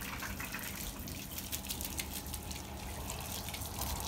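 Water spraying steadily from a garden hose onto a wooden board as it is rinsed down.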